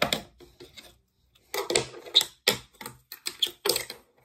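Rapid, irregular clicks and clacks of small hard objects being handled on a tabletop. A short cluster comes at the start and a longer run from about a second and a half in.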